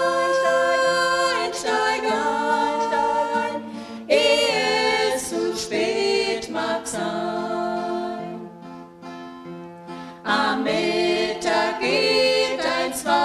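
A small women's vocal group singing a German song in harmony, accompanied by an acoustic guitar. The singing drops to a quieter stretch of about two seconds in the middle, then comes back in full.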